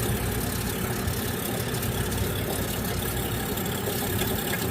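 Summit ice maker's drain pump running with a steady hum, pumping water out of its drain bucket after the float switches are lifted.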